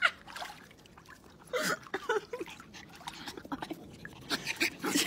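A woman laughing in short bursts, with faint trickling and splashing of pool water.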